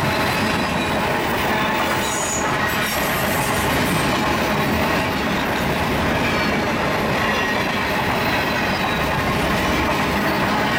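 Freight train of covered grain hopper cars rolling steadily past: a continuous wheel-on-rail rumble and rattle, with thin steady squealing tones from the wheels on the rails.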